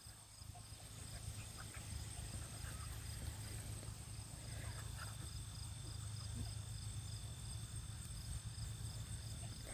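Quiet outdoor ambience under a steady low rumble, with a few faint short squeaks from beagle puppies playing in the dirt, about two and five seconds in.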